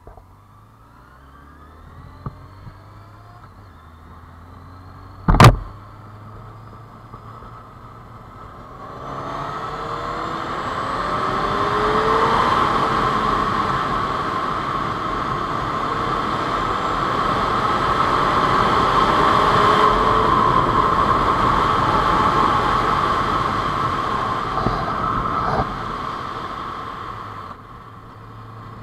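Honda CBR600 F4i's inline-four engine pulling away from a stop and accelerating up through the gears in a series of rising revs. A single sharp knock about five seconds in is the loudest sound. From about nine seconds in, loud wind rush on the helmet-mounted camera covers the engine, easing off near the end.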